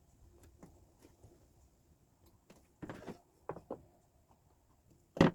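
Light knocks and clicks of small wooden pieces being handled and fitted together, with one sharp, much louder snap just before the end.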